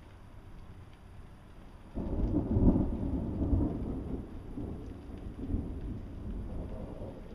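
Thunder: a sudden deep rumble breaks out about two seconds in, peaks almost at once, then rolls on and slowly fades.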